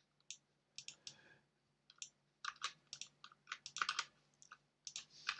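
Faint typing on a computer keyboard: irregular single keystrokes, sparse at first and coming quicker from about two and a half seconds in.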